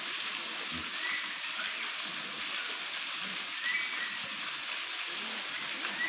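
Steady hiss of falling, rushing water from the waterfall that feeds the rock pool.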